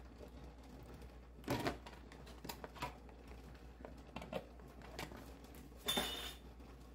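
A ladle knocks against a stainless steel pot a few times, then a glass lid with a steel rim is set down on the pot about six seconds in, landing with a loud clink that rings briefly.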